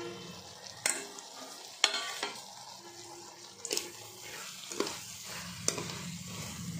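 Steel ladle stirring fried chicken pieces into a thick onion-tomato masala in a stainless steel pot, with several sharp clinks of metal against the pot over a low sizzle.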